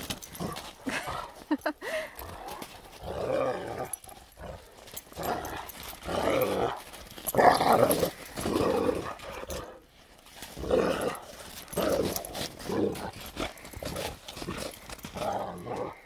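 Two dogs play-fighting and barking at each other, with short vocal bursts coming every second or so.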